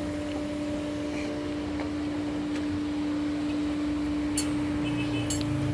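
A machine humming steadily at one pitch, with two light clicks in the second half.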